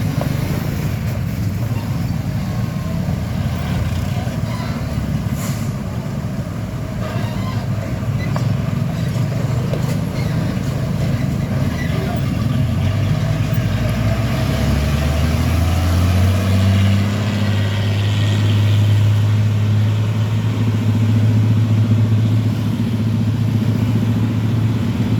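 Large truck engine running with road rumble. About two-thirds of the way in, the engine note rises and then holds a steady low drone.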